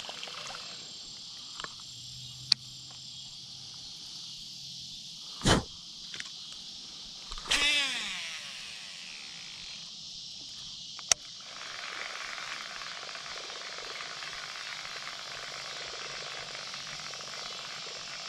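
Evening chorus of crickets and other insects, a steady high buzz. It is broken by a few sharp clicks, a loud knock about five seconds in, and a brief whirr that drops in pitch a couple of seconds later.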